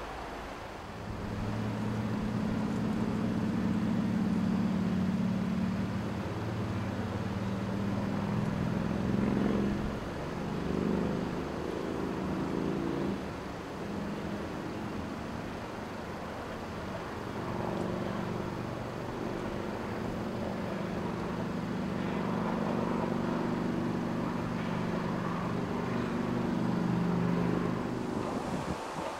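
A motor engine running steadily with a low, even drone, its pitch shifting and wavering for a few seconds about halfway through, then settling into a steady drone again.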